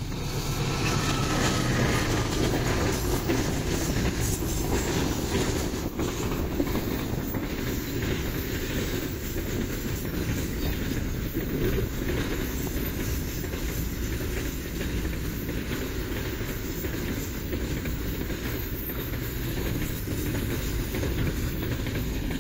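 Container freight train passing close at speed: a steady low rumble of wheels on rail with a dense run of clacks over the joints, loudest a couple of seconds in.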